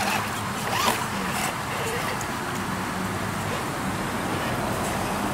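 Traxxas TRX-4 Sport RC rock crawler's electric motor and drivetrain running as it crawls over wet rocks, over a steady rush of creek water.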